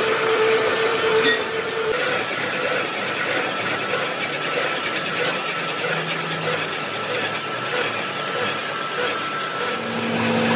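Large manual lathe turning a big spoked metal gear blank, a single-point tool bit cutting the face of its hub: a steady rasping scrape over the machine's running hum. About two seconds in, a steady tone stops with a click, and near the end the sound shifts to a different, lower steady machine hum.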